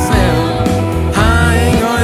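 Blues-rock band playing a song with guitar and singing. A melody line glides up and down about a second in.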